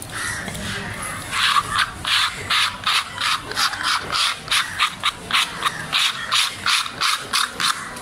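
A knife blade scraping across a wet wooden chopping block in quick repeated strokes, about three a second, starting about a second and a half in. The cutter is scraping the block's surface clean.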